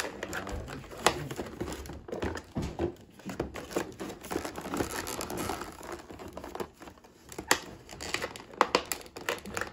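Packaging crinkling and rustling while being handled, with many sharp clicks and knocks scattered throughout.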